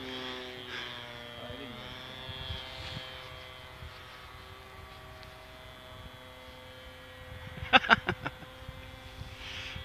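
Radio-controlled model airplane flying overhead, its motor a steady whine with a short pitch glide about a second and a half in. A quick cluster of loud knocks about eight seconds in.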